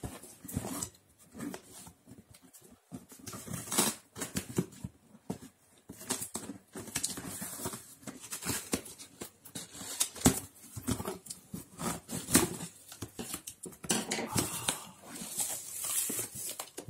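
A taped cardboard parcel being opened by hand: scissors cutting at the tape and cardboard flaps rustling and scraping, in irregular crackles and knocks.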